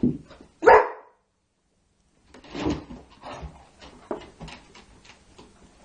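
A Labrador retriever barks once, short and loud, about a second in. Later come irregular soft knocks and scuffles as the dog noses a ball across a wooden floor.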